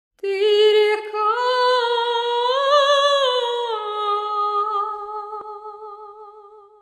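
A single high voice humming or singing a wordless, unaccompanied melody in long held notes. The voice rises in pitch about three seconds in, falls back, then wavers with vibrato as it fades away near the end.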